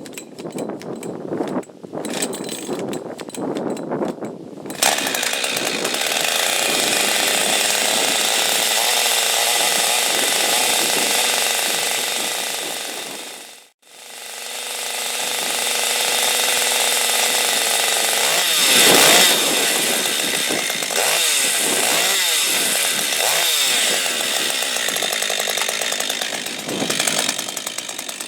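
Husqvarna Autotune chainsaw being pull-started, with a few seconds of cranking and short pops before it catches about five seconds in and runs loud and steady. The sound drops out for a moment near the middle, then the engine picks up again with a quick rise in speed partway through.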